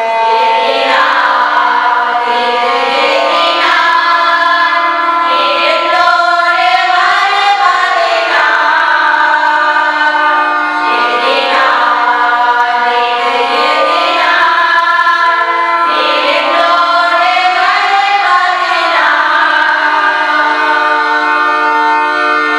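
A women's group singing a Tamil Christian hymn together, the voices gliding over sustained accompanying chords that change every few seconds.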